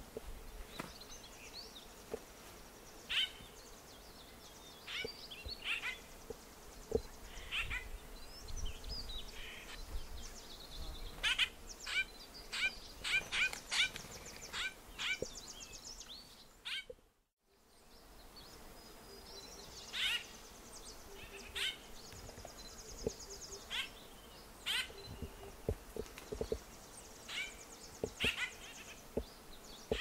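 White-winged grosbeak calls: short, sharp notes repeated at irregular intervals, at times in quick runs, with a higher fast trill now and then. The recording cuts out briefly about halfway through.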